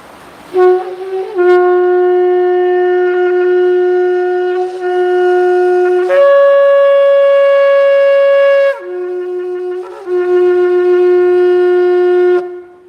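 A 96-centimetre shofar blown in long held notes: a low note with a couple of brief breaks, a step up to a higher note held for about three seconds, then back down to the low note, which stops shortly before the end.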